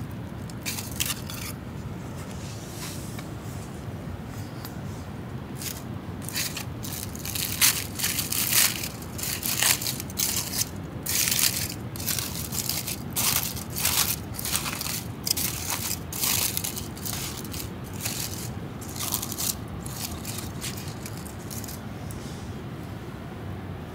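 Aluminium foil packet being pulled open by hand: irregular crinkling and crackling of the foil, coming in bunches through the middle and dying away near the end.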